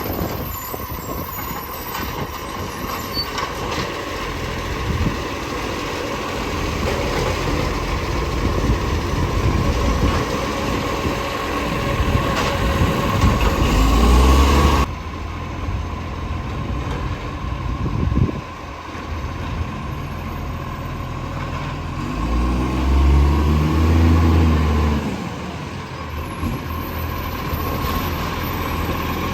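Garbage truck engine running, with an exhaust leak, revving up twice: about halfway through and again near three quarters of the way. A steady high whine sits under the engine throughout.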